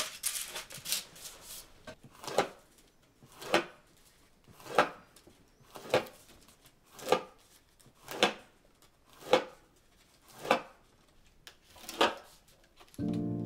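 Knife cutting through the fine bamboo ribs around the edge of a Chidori-type Miyako uchiwa fan: a crisp snick about once a second, evenly spaced.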